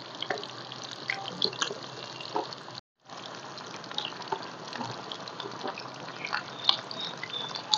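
Whole marinated chicken deep-frying in hot oil in a steel karahi: a steady sizzle full of small crackles and pops, with a brief dropout about three seconds in.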